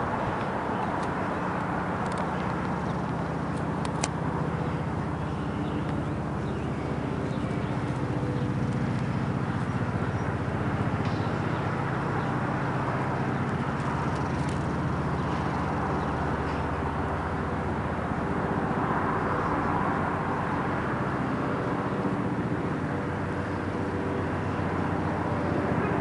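Steady drone of distant engine noise outdoors, a low hum with a wide rushing haze that swells and fades slowly a couple of times. A single sharp click about four seconds in.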